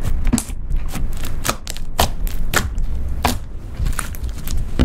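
Slime being pressed and poked by hand, giving sticky pops and crackles, including a white crunchy slime packed with foam beads. The pops come irregularly, about one or two a second.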